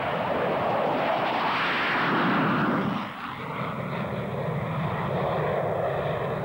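A-4 Skyhawk jet taking off at full power close by, its turbojet noise sweeping down in pitch as it passes. About three seconds in the sound drops suddenly to a steadier, more distant jet noise with a faint whine.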